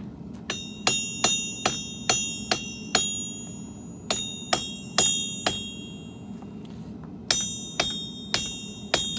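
Forging hammer striking steel on an anvil, each blow ringing: three runs of blows at about two a second, with short pauses between, over a steady low hum.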